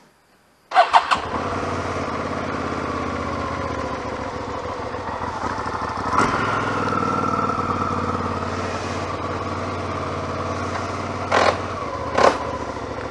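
Hyosung GT650R's 647 cc V-twin engine starting about a second in, catching after a few quick pulses, then idling steadily, with two short louder blips near the end.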